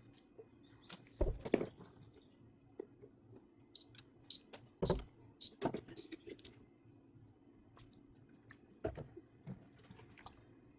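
A kitchen appliance's control panel beeping five times, short high beeps about half a second apart, as its buttons are pressed. Scattered clicks and knocks of kitchenware being handled come before and after.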